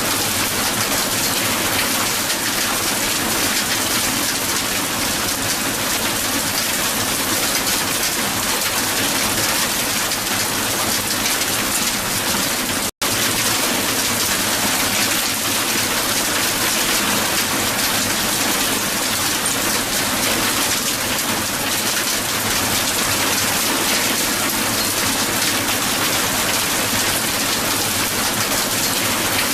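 Strong hail falling on the ground: a dense, steady patter of ice pellets, with a split-second dropout to silence about halfway through.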